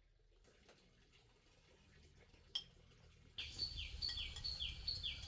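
A bird calling: from about three and a half seconds in, a string of short high chirps, each sliding down in pitch, about two a second. A single sharp click comes shortly before the calls begin.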